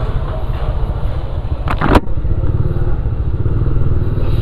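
Motorcycle engine running steadily as the bike is ridden, with a single sharp click about two seconds in.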